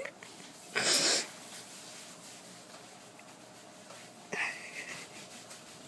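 A person's short, sharp breath of air, about a second in, with a fainter brief breathy sound a little past four seconds.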